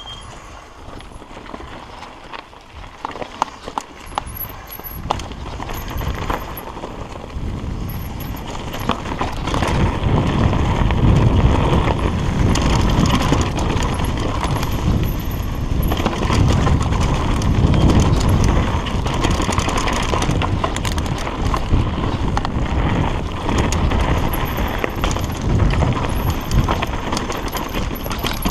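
Mountain bike descending a dirt singletrack: tyre noise on the dirt and a constant clatter of clicks and rattles from the bike over the rough trail, with wind rumble on the microphone that grows louder as the bike speeds up about ten seconds in.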